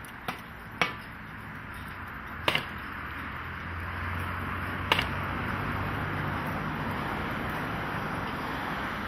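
Sharp knocks on timber, as in carpentry work, four of them spaced irregularly in the first five seconds, over a steady hiss of site background noise, with a low hum rising in the middle.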